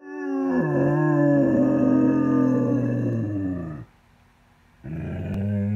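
Dog howling: one long drawn-out howl that fades out about four seconds in, then a shorter howl starting near the end.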